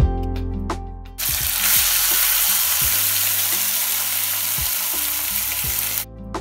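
Marinated mutton tipped into hot oil in an aluminium kadai, setting off a steady sizzle that starts abruptly about a second in and cuts off sharply near the end. Plucked guitar music plays before the sizzle begins and returns after it stops.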